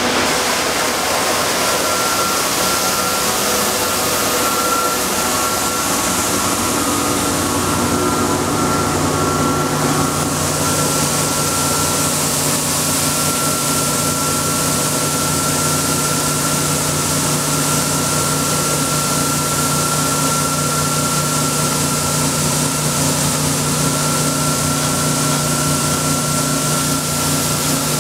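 Combine harvester engine running steadily while its unloading auger pours grain into a trailer, a steady hiss over the engine's hum. The hum grows stronger about eight seconds in.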